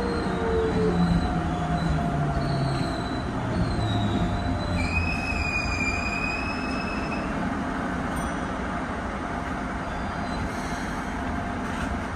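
Keikyu 1500-series electric train slowing on its approach to a station. Its motor whine falls in pitch over the first few seconds, a high squeal of wheels or brakes rises from about four to seven seconds in, and steady rolling rumble runs underneath.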